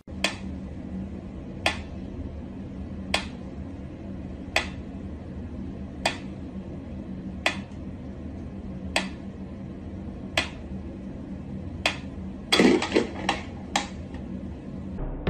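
Mechanical pyramid metronome ticking slowly, about one tick every second and a half. About twelve seconds in there is a louder cluster of knocks, and a faint steady hum runs underneath.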